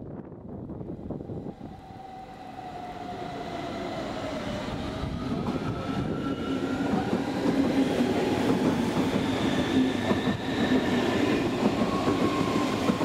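Hamburg S-Bahn class 474 electric train moving through the station. Its motor whine slides down in pitch, then climbs, over a rumble of wheels on rail that grows steadily louder.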